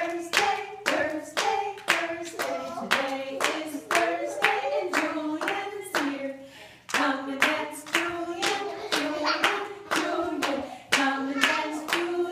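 Singing with hand clapping in a steady beat, about two claps a second, with a short break about six and a half seconds in.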